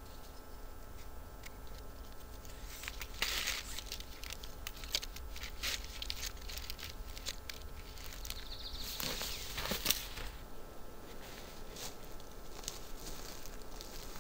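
Paracord being handled, wrapped and pulled tight around a tree trunk and a wooden toggle: scattered small rustles and clicks, a brief friction rush about three seconds in and a longer one of cord sliding through the hands about nine seconds in, ending in a sharp tick.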